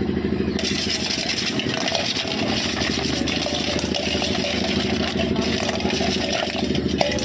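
A small engine idling steadily nearby.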